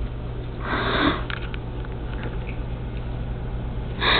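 Cat's fur brushing against the camera as it rubs its head on it: two short rustling bursts, about half a second in and again near the end, over a steady low hum.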